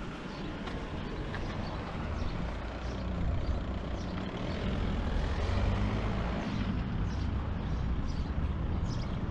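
Low rumbling noise that grows louder about three seconds in and then holds steady.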